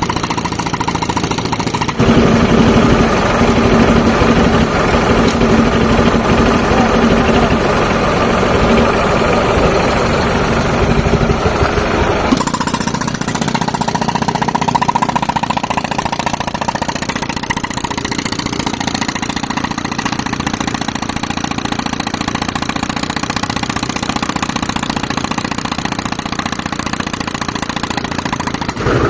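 Tractor engine driving an air compressor, with a pneumatic rock breaker hammering in a fast, continuous rattle. The sound grows louder about two seconds in and changes abruptly about twelve seconds in, then holds steady.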